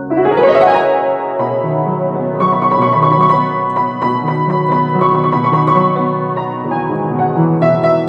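Instrumental background music led by piano, opening with a rising sweep of notes before a fuller low accompaniment comes in.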